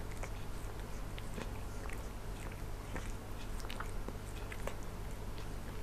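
A black cat grooming itself, making small irregular wet licking and mouth clicks, over a steady low hum.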